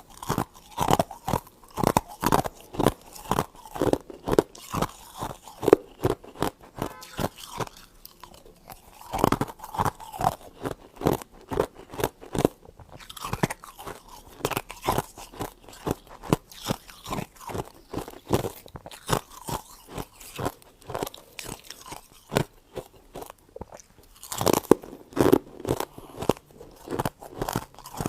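Close-up biting and chewing of freezer frost: a steady run of sharp, icy crunches, about two to three a second.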